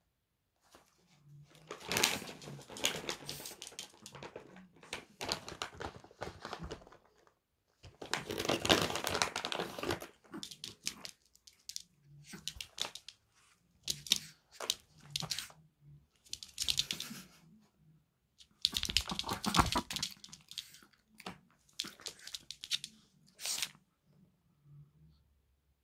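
Crinkling and rustling in short, irregular bursts a few seconds apart.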